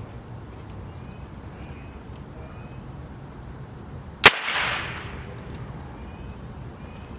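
A small charge of nitrogen triiodide detonating with a single sharp snap about four seconds in, followed by a hissing tail that fades over a second or so.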